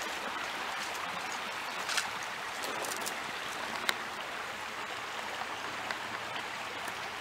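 Creek water running steadily, an even rushing hiss, with a few faint clicks from small fishing tackle being handled, the clearest about two and four seconds in.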